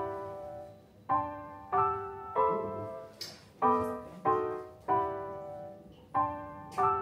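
Background music: a piano playing a slow run of notes or chords, each struck sharply and left to ring and fade, roughly one every two-thirds of a second.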